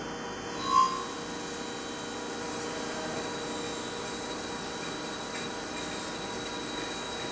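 Machine drilling a deep hole in 1.4301 stainless steel with a WIDIA TOP DRILL S+ 12xD solid-carbide drill under flooding coolant: a steady machining noise of cutting and coolant spray, with a thin high whine throughout. A brief, loud high tone sounds about a second in.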